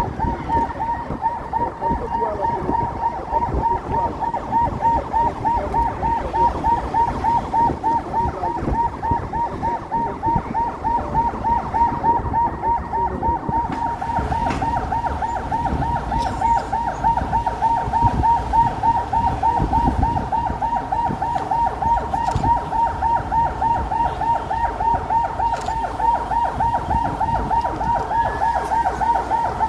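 Convoy escort vehicle's siren on a fast yelp, its pitch sweeping up and down several times a second without a break, over the engine and road noise of moving traffic.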